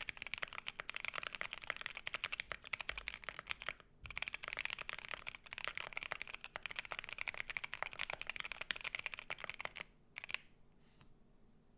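Fast typing on a custom mechanical keyboard with C3 Tangerine linear switches. The clicks are dense and rapid. They break off briefly about four seconds in, as the keycap set changes from GMK Amethyst to SW Graphite, then run on until they stop about ten seconds in.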